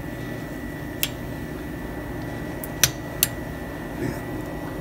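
A steel pick clicking against the metal group head of an espresso machine as it is wedged in to pry out the old rubber gasket: three sharp clicks, one about a second in and two close together near three seconds, over a steady low hum.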